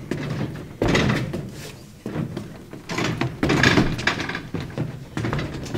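Footfalls of a performer hopping and skipping across a raised stage platform: a handful of irregular thuds, each with a short echo.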